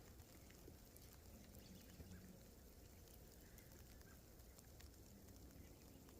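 Near silence: faint steady outdoor background hiss with a few soft ticks.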